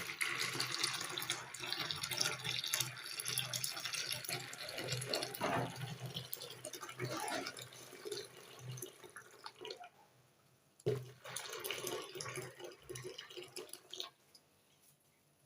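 Hot water poured into a bowl of melted oils and waxes for a homemade conditioner, a steady splashing pour for about ten seconds, then a second, shorter pour after a brief pause.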